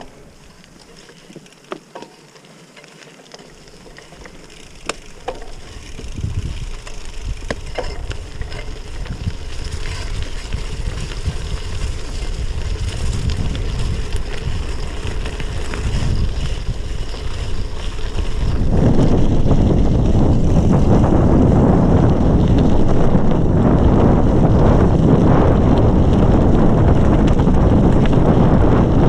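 Wind rushing over the microphone and tyres crunching on wet gravel as a Trek Checkpoint SL5 gravel bike rides along a logging road, with a few sharp clicks in the first several seconds. The rush grows steadily louder as speed builds, then jumps up sharply about two-thirds of the way through.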